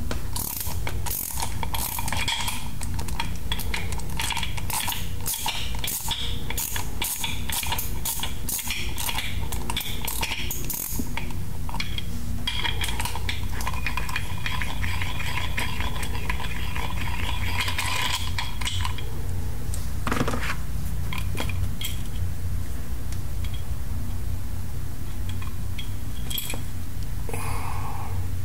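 Socket ratchet clicking as the factory shipping bolt is backed out of a new hydraulic gear pump, in quick runs of clicks for the first half, then only scattered clicks and knocks.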